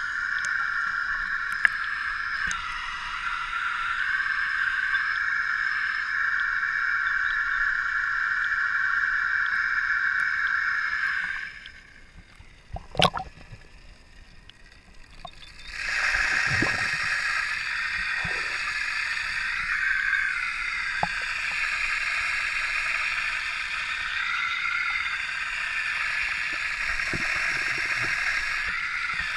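Pool water sloshing with a steady watery hiss, heard from a camera at the waterline. About twelve seconds in, the camera goes under the surface and the hiss drops away for a few seconds, leaving a sharp knock and a few low gurgling sloshes. Then the steady hiss returns.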